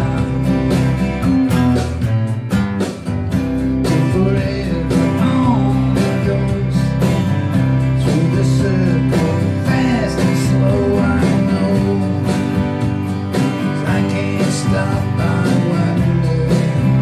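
Steel-string acoustic guitar strummed steadily in an even rhythm, played live through a microphone.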